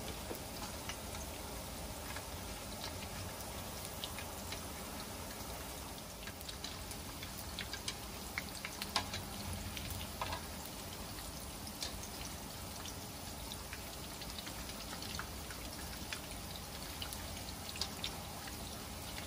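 Shrimp balls deep-frying in hot oil: a steady sizzle with scattered small pops and crackles.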